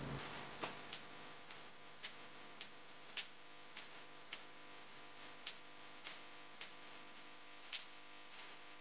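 Light, sharp ticks, roughly two a second with some beats missing, over faint steady tones.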